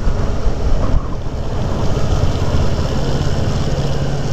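Motorcycle on the move: the engine hums steadily under loud wind noise on the microphone.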